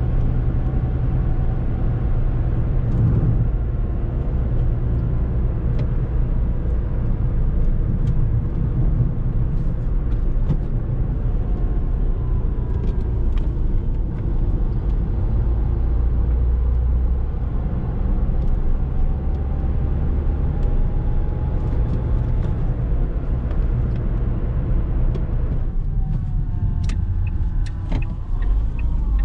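2007 Ford Fusion 1.4 16V's 1388 cc inline-four petrol engine running while the car is driven, over a steady low road and tyre rumble with scattered light ticks. The engine pitch rises near the end.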